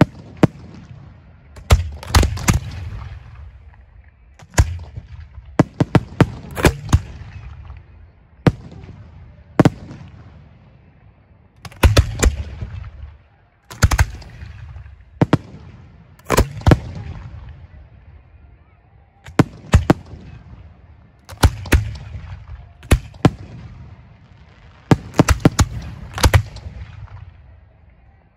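Professional display shells firing from ground racks of mortar tubes: sharp booms every second or two, some alone and some in quick clusters of two to four, each trailing off in a low rumbling echo.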